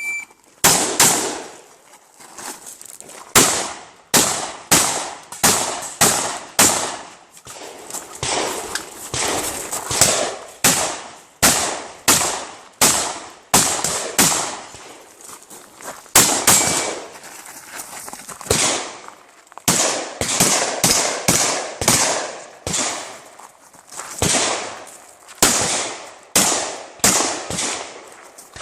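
A shot timer beeps once, then a shotgun fires about thirty-five shots in quick strings, roughly one a second or faster, with a few short pauses between strings. Each shot rings out with a short echo.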